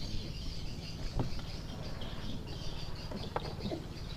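Steady high-pitched chirping of birds and insects over a low steady hum, with two light knocks, about a second in and past three seconds in, from a spinning reel and rod being handled right beside the microphone.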